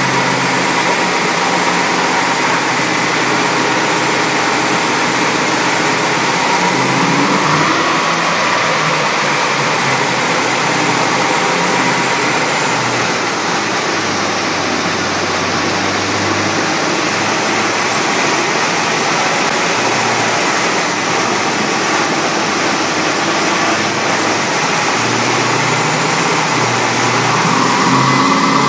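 Holden Clubsport V8 idling and running at low revs on the chassis dyno, with its pitch lifting a little about seven seconds in and again near the end, over a steady rushing noise.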